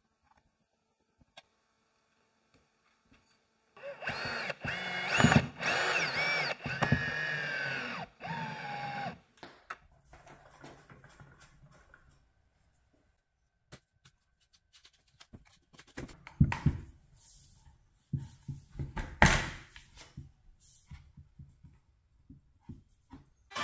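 Cordless electric pole saw's motor whining for about five seconds, its pitch rising and falling, then stopping. A few loud thuds follow later.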